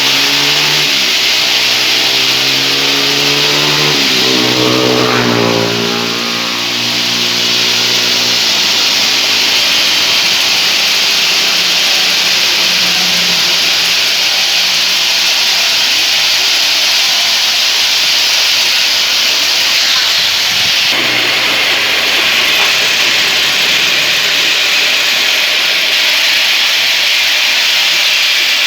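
24-inch band sawmill running, a steady loud hiss of the blade with the drive's hum underneath; a few seconds in the drive's pitch dips and rises again, and about two-thirds of the way through the hiss changes character.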